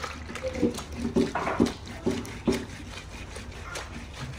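Water sloshing and squelching as hands squeeze and rub pounded bitter leaf in a plastic basin of water. Several short pitched calls are heard over it in the first two and a half seconds.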